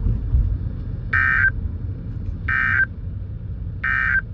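NOAA Weather Radio SAME end-of-message data bursts: three short electronic buzzes, each about a third of a second long and about 1.4 s apart, over a low steady radio hum. They signal the end of the alert broadcast.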